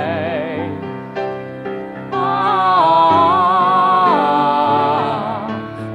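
Musical-theatre duet sung with piano accompaniment. A held vibrato note dies away in the first half second, piano chords carry on alone for a moment, and about two seconds in the singing comes back louder with long, held notes.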